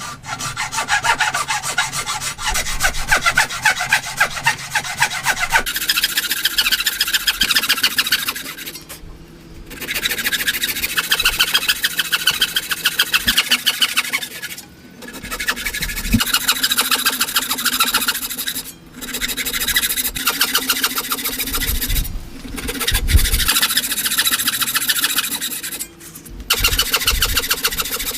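A hand tool working wood in fast, repeated back-and-forth strokes, such as a rasp or saw cutting joinery. The strokes come in runs of a few seconds with short breaks between them.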